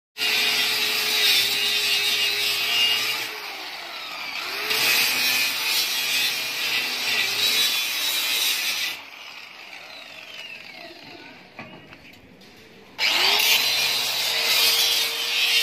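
Electric power tool running, its pitch sagging and recovering a few times. It cuts out about nine seconds in and starts up again, its pitch rising, near the end.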